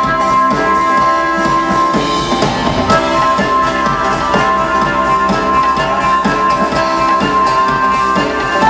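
Live instrumental music from an Earth Harp and band. A drum beat runs under long held, ringing notes.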